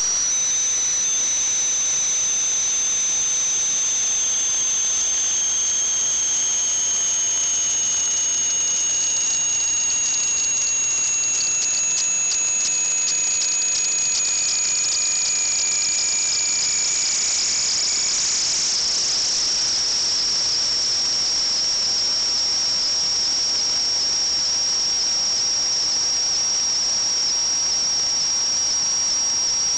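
Pressurised leak in a plumbing line, hissing steadily with a high whistle. A second, lower whistle slides slowly down in pitch and fades out about two-thirds of the way through.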